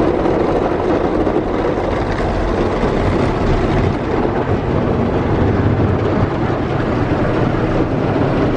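Automatic car wash working over the car, heard from inside the cabin: a loud, steady rumble and swish of the wash brushes and water spray against the body and windows.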